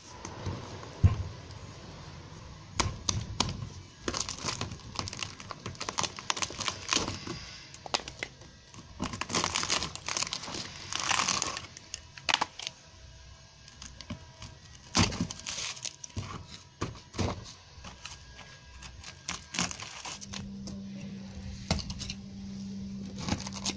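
Rotten timber at the foot of a painted wooden door frame being dug out with a hand tool: irregular cracking, crunching and scraping as soft, rotten wood and a strip of painted trim are prised and broken away. A low steady hum comes in near the end.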